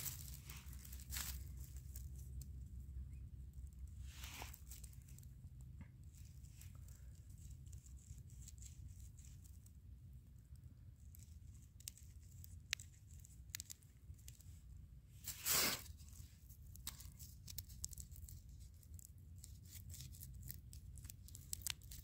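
Faint, scattered scraping and crackling of a small stone carving a piece of chaga mushroom, with dry grass rustling under the hands. There is a louder rustle about four seconds in and the loudest one about two-thirds of the way through.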